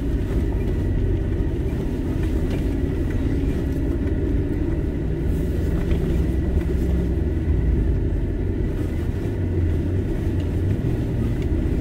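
Cabin noise of a Nissan Y62 Patrol driving on a dirt track: a steady low rumble from the tyres on the gravel and the 5.6-litre V8 engine, heard from inside the cabin.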